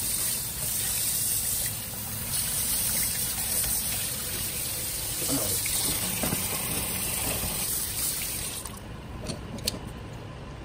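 Tap water running into a stainless steel sink and splashing over a fish being rinsed by hand. The flow stops about eight and a half seconds in, followed by a few sharp clicks of kitchen scissors snipping the fish.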